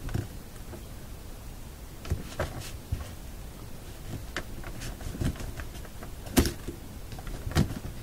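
Scattered small metallic clicks and taps as the metal tabs on an old radio volume control's casing are pried up one by one. The sharpest click comes about six seconds in, with another about a second later.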